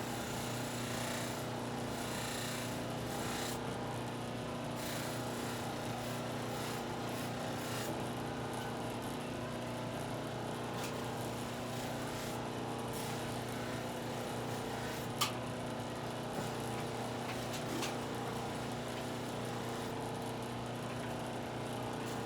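Electric buffing wheel motor running steadily, with a tobacco pipe stem held against the tripoli-charged wheel to buff it. One sharp click about fifteen seconds in.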